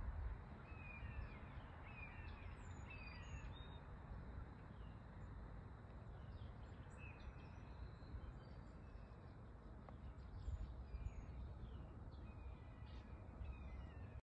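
Small birds chirping and calling on and off over a steady low rumble and hiss of outdoor background noise. The sound cuts off suddenly near the end.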